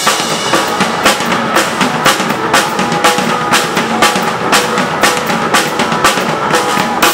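Acoustic drum kit played hard and fast, snare, bass drum and cymbal hits coming thick over a recorded rock backing track.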